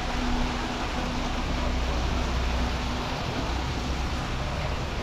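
Steady rushing background noise with no single clear source, heaviest in the low end, with a faint hum that fades out about halfway through.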